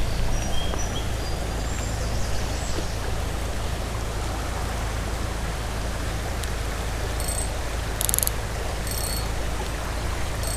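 Small trout creek running steadily, a constant rush of shallow water. A few brief faint high chirps come in the first seconds, and short high-pitched ticks a few times later on.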